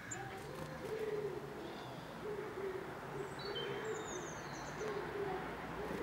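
A pigeon cooing in repeated low phrases, with a few faint high bird chirps in the middle.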